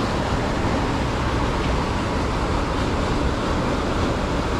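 Steady rush of a waterfall and mountain creek, a loud even roar of falling water with no breaks.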